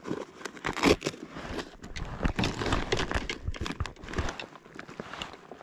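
Close rustling and crinkling handling noise made of many irregular clicks and snaps, loudest about a second in and thinning out near the end.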